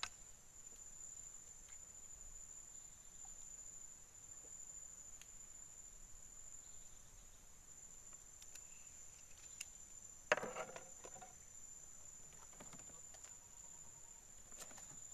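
Steady high-pitched drone of insects, with a few faint knocks and a brief clatter about ten seconds in.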